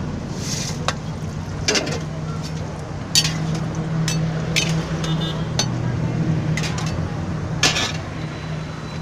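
Deep-frying in a large kadai of hot oil: a steady sizzle, with sharp metallic clinks about once a second as a spoon stirs the snacks against the pan. A steady low hum runs underneath.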